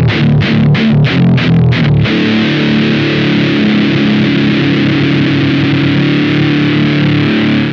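Electric guitar through a Velouria FX Witchcraft distortion pedal: quick repeated picked chords, about five a second, then about two seconds in a single chord held ringing with heavy distortion until it cuts off abruptly.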